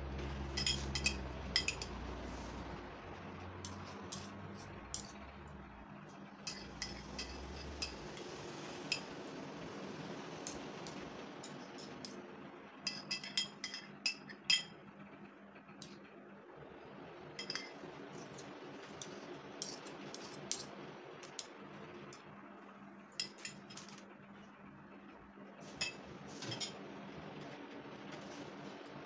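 A metal spoon clinking and scraping against a ceramic plate while scooping out filling, in scattered clusters of short, light clinks.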